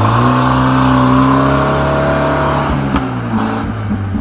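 A motor vehicle's engine held at high revs, its pitch steady, then dropping off about three seconds in, with a single sharp click around the same moment.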